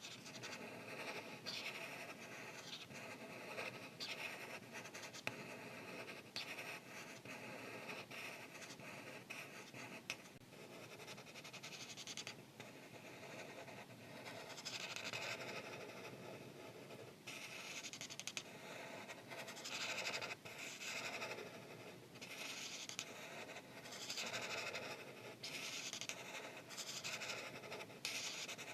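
Art marker tip rubbing on paper in repeated back-and-forth strokes as an area is filled in with colour, a soft continuous scratching.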